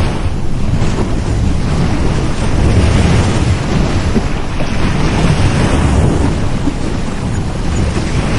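Ocean surf breaking on a beach: a steady loud wash of waves with a deep rumble, swelling and easing as waves roll in.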